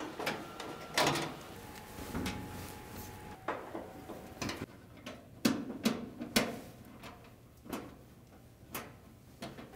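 Phillips screwdriver working the screws out of a dryer door hinge, with a string of irregular clicks and light knocks of metal and plastic as the screws and hinge are handled.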